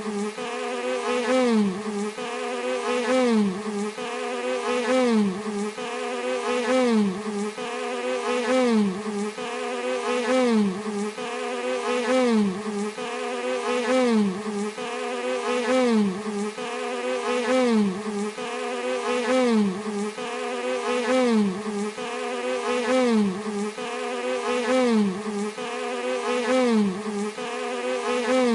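A bee buzzing steadily, its pitch dipping and swooping back up about once a second in an evenly repeating cycle.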